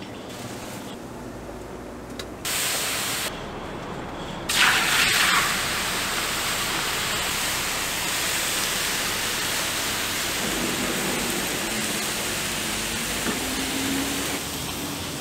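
Raw pork intestine pieces land on a hot flat griddle about four and a half seconds in with a loud burst of sizzle. A steady sizzling hiss follows as they cook and steam.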